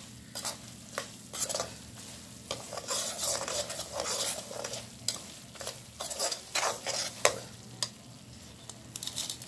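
A steel spoon stirring and scraping a coarse mix of roasted moong dal and crushed nuts around an iron kadhai, with hot ghee sizzling underneath. The scrapes come irregularly, about one or two a second.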